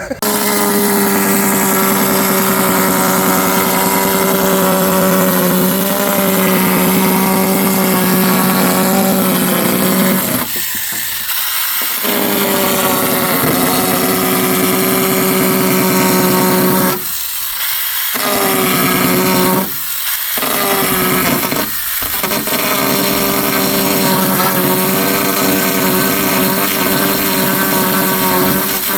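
A power tool motor runs steadily at one constant pitch, with a strong hiss of cutting. It stops or drops away briefly four times: once about ten seconds in, then three times in quick succession later on.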